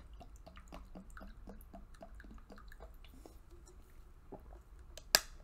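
A person gulping water in quick, even swallows, several a second for about three seconds. A single sharp click near the end is the loudest sound.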